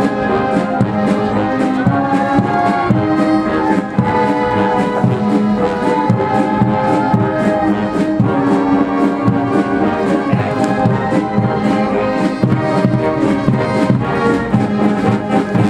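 Military brass band playing a march over a steady drum beat; the music ends near the end.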